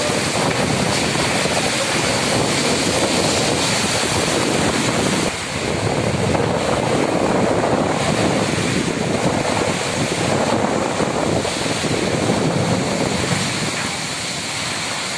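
Storm wind rushing through trees with heavy driving rain, and gusts buffeting the microphone.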